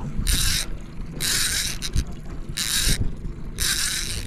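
Fishing reel sounding in four short bursts of high whirring while a fish is fought up from the bottom, over a low rumble.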